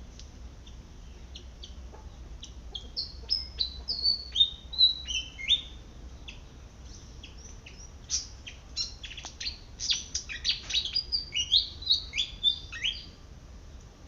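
Malaysian pied fantail singing: a run of short, high whistled notes, many dropping in pitch, about three seconds in, then a longer, busier run from about eight seconds until near the end.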